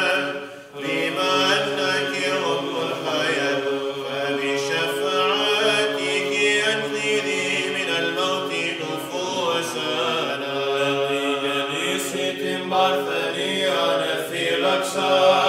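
Greek Orthodox Byzantine chant: a group of voices singing a Greek hymn unaccompanied, in long drawn-out notes, with a short break about half a second in.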